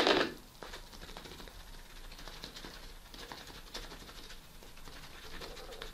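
Faint, irregular scratching and dabbing of a paintbrush working paint, after a brief louder scrub right at the start.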